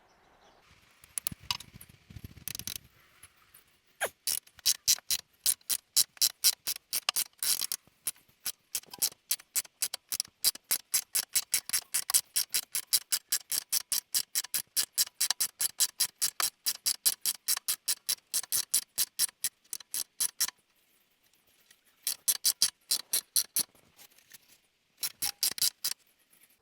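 Socket ratchet clicking steadily, about four clicks a second, as an 18mm bolt is turned out. A few seconds of faint handling come first, and the clicking stops briefly twice near the end as the wrench is reset.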